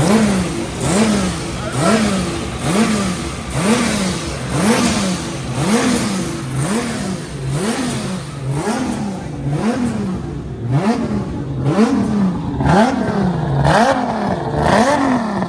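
Toyota 2JZ straight-six engine being revved in short throttle blips, about once a second, each rise in pitch falling straight back. It is running straight after its first start-up in a drift car build.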